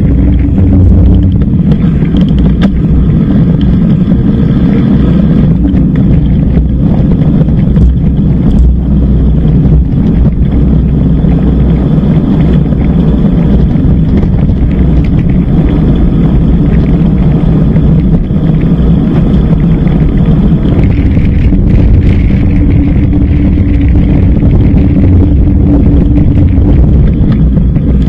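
Steady low rumble of wind buffeting an action camera's microphone, mixed with tyre and road noise from an e-bike riding along.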